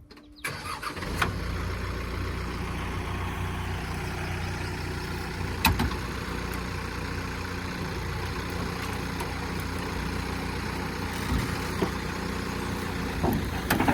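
Diesel engine of a piece of heavy equipment coming in about half a second in and then running steadily at low speed, with a sharp knock near six seconds.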